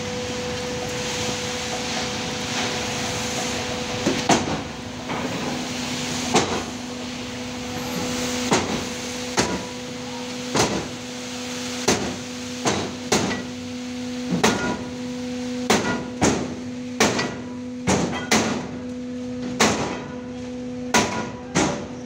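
A steady machine hum with a series of sharp knocks starting about four seconds in, irregular and roughly one a second, coming closer together near the end.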